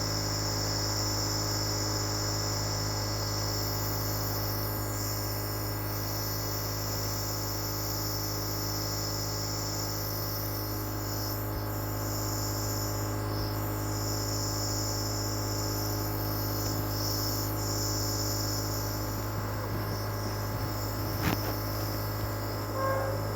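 Compressor nebulizer running with a steady hum and a high hiss. A couple of brief louder sounds break in near the end.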